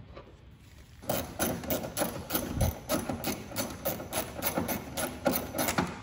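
Hand ratchet clicking steadily, about four to five clicks a second, as a socket drives home the bolt that holds the trunk latch actuator; the clicking starts about a second in.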